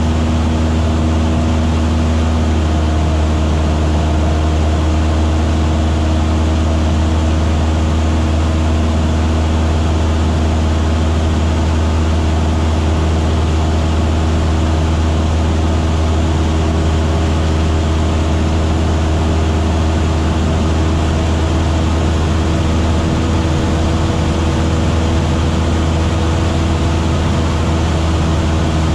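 Single-engine light propeller plane's engine and propeller droning steadily in flight: a deep, even hum with a few steady higher tones over it.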